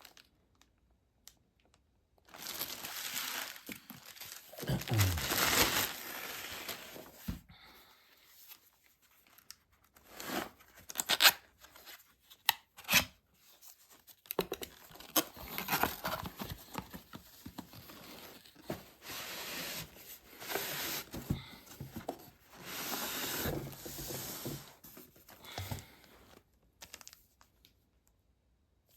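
Packaging being torn open and crinkled by hand, in separate bouts of rustling with a few sharp clicks and short pauses between.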